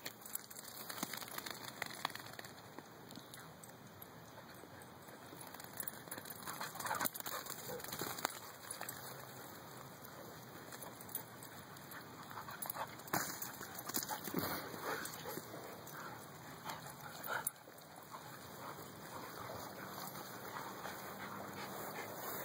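Huskies playing together, with short, scattered dog sounds amid running and tussling.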